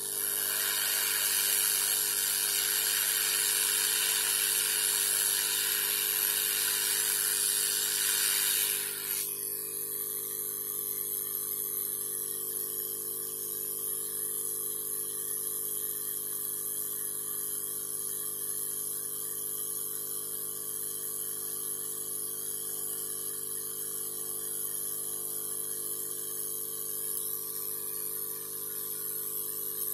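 A loud steady hiss, like air or spray rushing, for about the first nine seconds, cutting off abruptly and leaving a steady low electrical hum.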